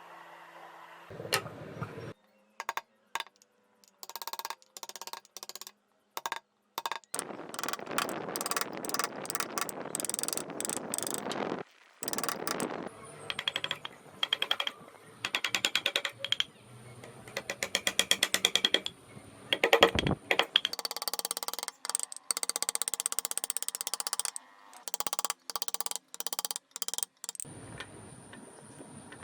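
A quick string of short, abruptly cut clips of hand-tool work on wood: stretches of scraping or rasping noise alternate with runs of rapid clicks and taps.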